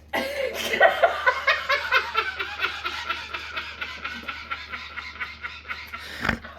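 Long fit of rapid, breathy snickering laughter, about six or seven pulses a second, slowly fading, with a short knock near the end.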